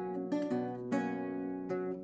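Renaissance lute played solo: plucked notes, then a chord left ringing for most of a second near the middle.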